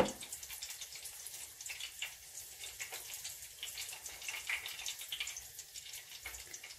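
A gloved hand tossing egg-coated chicken pieces in a glass bowl of flour and cornstarch: faint, soft rustling with scattered small crackles and ticks.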